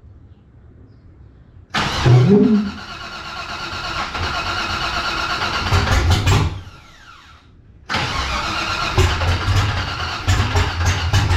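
Supercharged LS V8 in a G-body Cutlass being started: it catches about two seconds in with a quick flare and runs for a few seconds, then stalls and winds down. It fires again near the end and runs unevenly. The engine can't hold an idle, which the owner puts down to too little air through the throttle body on an untuned Holley EFI setup.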